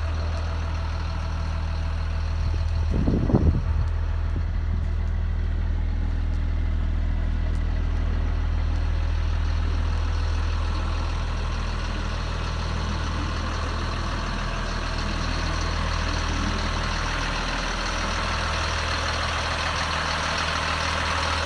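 Caterpillar C7 diesel engine of a school bus idling steadily. A brief thump about three seconds in is the loudest moment.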